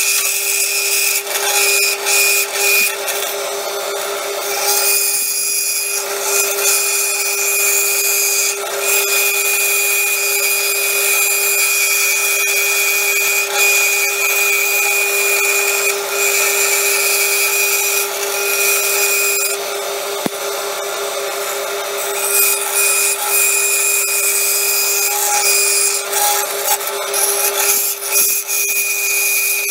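Jet variable-speed bandsaw running steadily, its blade cutting a 4 mm plate of 12C27 stainless steel along tight curves: a steady machine whine under a high, harsh scraping hiss from the cut. The cutting noise eases off briefly twice, around five seconds in and again around twenty seconds in, as the piece is turned, then picks up again.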